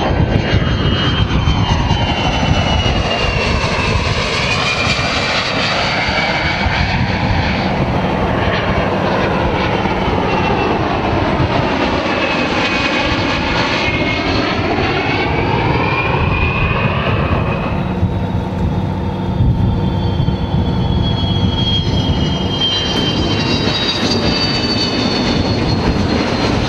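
Twin jet engines of a Beriev Be-200 amphibious water bomber making low passes over a river, a steady loud jet roar whose tone sweeps slowly up and down as the aircraft flies by. Near the end a high whine falls in pitch as it skims the water.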